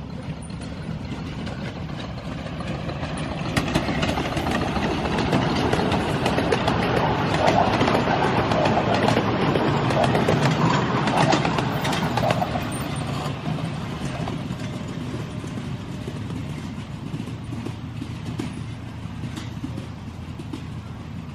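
7¼ inch gauge miniature steam locomotive and its passenger cars running past with many small clicks. It grows louder to a peak around the middle and then fades as the train goes away.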